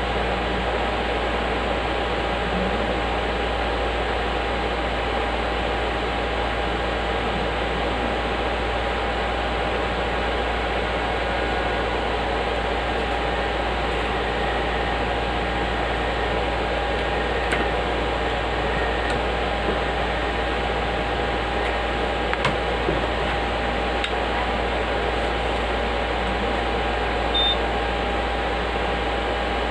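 Steady whirring hum of cooling fans and electrical equipment, with a faint constant whine. A few light clicks, and one brief high beep near the end.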